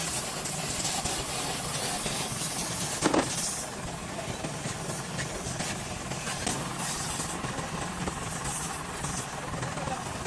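Steady mechanical hiss with a low hum underneath, and one sharp knock about three seconds in.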